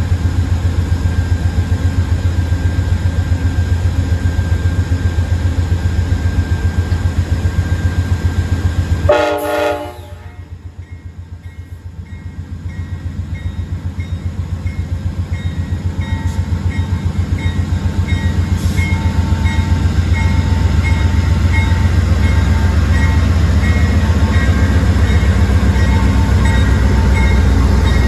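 Amtrak GE Genesis P42DC diesel locomotive running with a deep, steady, throbbing rumble. About nine seconds in it gives one short horn blast. After that the engine sound dips, then grows steadily louder over several seconds as it throttles up.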